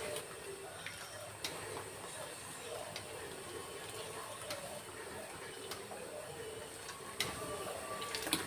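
Faint, irregular clinks of a metal spoon against a wok and a plastic strainer basket as chunks of parboiled beef are scooped out of the water, over a low hiss and trickle of water.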